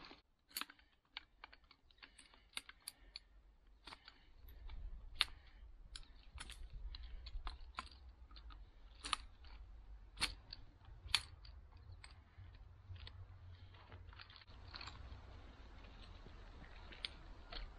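Light metal clicks and taps, scattered and irregular, as the thin metal tubes of a folding camp frame are unfolded and knock and snap together.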